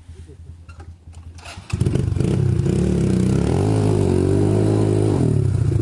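Dirt bike engine ticking over, then revved hard about two seconds in and held at high revs. The pitch wavers up and down as the bike labours up a steep rocky climb.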